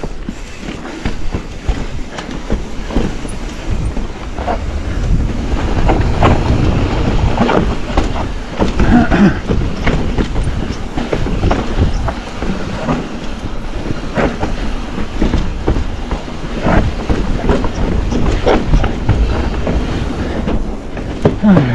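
Enduro mountain bike descending a rough trail: tyres crunching over stones and roots, with chain and frame clattering in fast, irregular clicks. A low rumble of wind runs on the microphone throughout.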